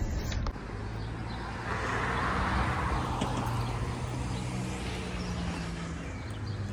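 Outdoor street ambience: a motor vehicle passing, swelling and fading a couple of seconds in, over a steady low hum.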